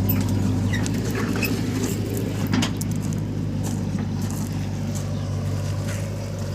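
Diesel engine of heavy farm or construction machinery running steadily at an even speed, with a few faint clicks and knocks.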